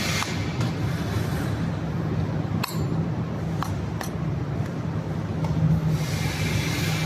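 A few sharp metallic clinks, about two and a half to four seconds in, over a steady low hum.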